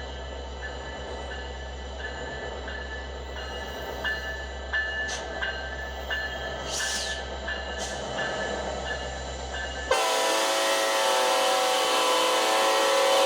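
Metra EMD SD70MACH diesel locomotive running at low speed with a steady low engine hum and a bell ringing a little over twice a second. About ten seconds in, its Nathan K5LLA five-chime air horn starts a loud, long blast, warning a grade crossing.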